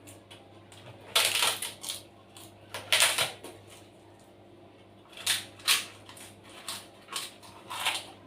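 A person biting and chewing crisp, crunchy fried food close to the microphone, several loud crunches at irregular intervals.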